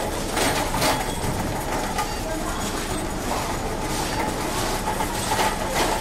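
Hospital ambience: a steady background of room noise, broken twice by a pair of brief rattling clatters about half a second apart, once just after the start and once near the end.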